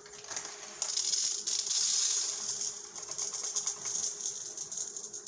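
Dry rice grains pouring from a plastic bag into a cup: a dense, hissing rattle that starts suddenly about a second in and thins out toward the end.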